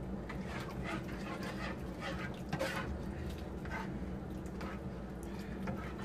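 Pot of coconut-milk water heating on a kitchen stove toward the boil: a steady low hum with a few short, soft noises at irregular intervals of about a second.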